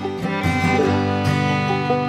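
Background music: a country-style tune played on plucked string instruments, with notes changing quickly.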